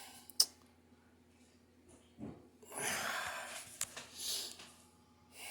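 A man breathing out heavily through his nose, with a couple of small sharp clicks.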